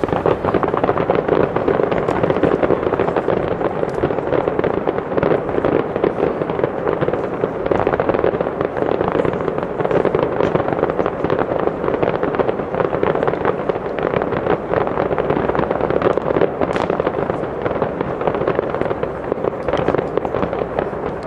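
Fireworks display: a dense, continuous barrage of bangs and crackling with no let-up.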